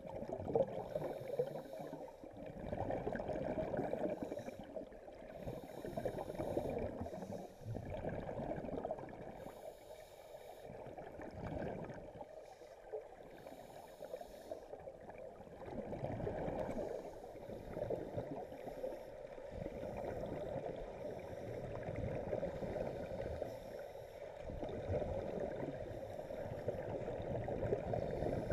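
Scuba divers' regulators heard underwater in a pool: a continuous muffled rumble, with bursts of exhaled bubbles every few seconds as the divers breathe out.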